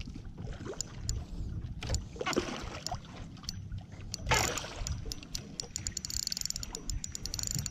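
Sounds of a small fishing boat on the water: a low rumble with scattered knocks, two short rushing noises about two and four seconds in, and a run of rapid ticking near the end.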